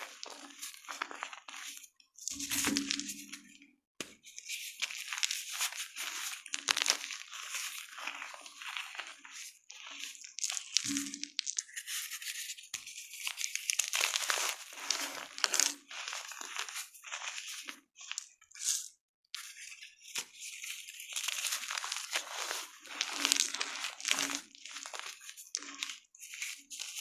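Gym chalk being crushed and crumbled, a dense crisp crunching and crackling in irregular bursts with a few brief pauses.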